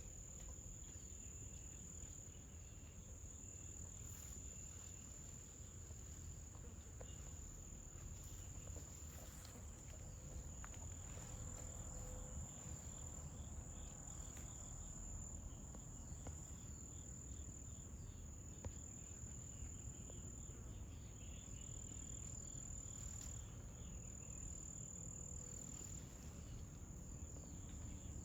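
Insects trilling in one steady, high-pitched drone, over a low rumble of background noise with a few faint clicks.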